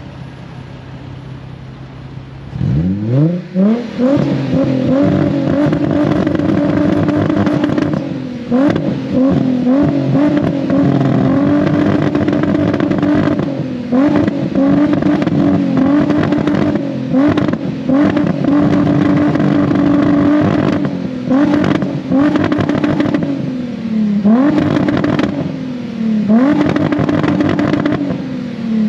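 Car engine with a 3-inch catback exhaust idling low, then revving up sharply about two and a half seconds in and held at high revs for seconds at a time. The revs drop briefly and climb back again several times.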